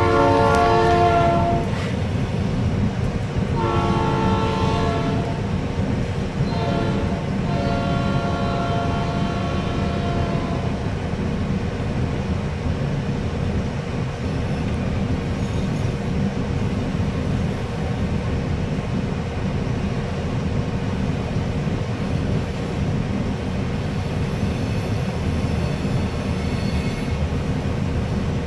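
Diesel freight locomotive air horn sounding the grade-crossing signal, long, long, short, long, over the first ten seconds or so. After that comes the steady low rumble of the locomotives and loaded hopper cars rolling past on the rails.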